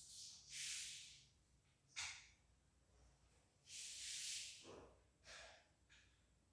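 Faint, slow breathing: two long hissy breaths, near the start and about four seconds in, with short sniffs and snuffles between and after them.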